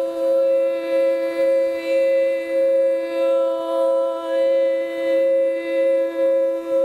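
Quartz crystal singing bowl rubbed around its rim with a mallet, giving a steady ringing tone that swells and dips about every two-thirds of a second. A woman's voice holds one long, lower note against it.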